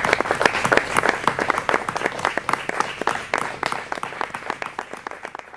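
Audience applauding: a dense patter of many hands clapping, growing quieter over the last couple of seconds.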